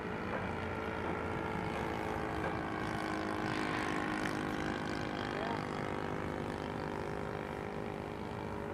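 Motor and propeller of a radio-controlled Fokker DR VIII model airplane running steadily in flight overhead. The sound is a little louder and brighter between about three and five seconds in.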